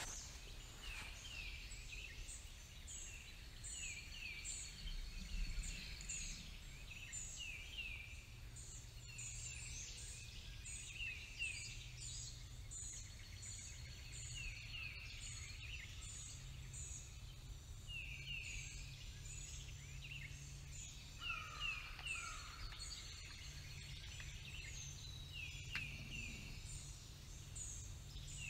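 Several birds singing in the early-morning chorus, with many short, falling notes repeating throughout over a faint low rumble.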